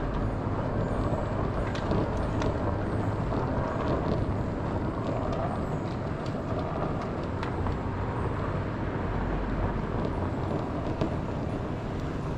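Steady ride noise of an electric off-road Segway rolling along a tarmac street: tyre rumble and wind on the mounted camera, with a few light knocks and rattles from the road surface.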